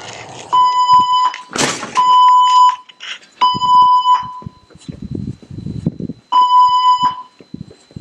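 Building evacuation alarm sounding its tone: three long electronic beeps with short gaps, a pause, then a fourth beep, the pulsed evacuation signal between the recorded voice announcements. A loud noisy burst falls between the first two beeps, and low thumps come during the pause.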